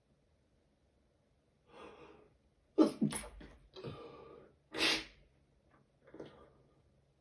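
A person sneezing in a sneezing fit: a drawn-in breath, then two sudden sneezes about two seconds apart, the first the louder, with breathing between them and after.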